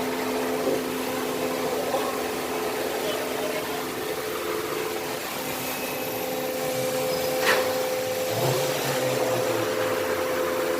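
Steady humming from a Genesis's differential over a background of running noise: a drone with two steady tones that points to a worn differential. A single sharp click comes about seven and a half seconds in.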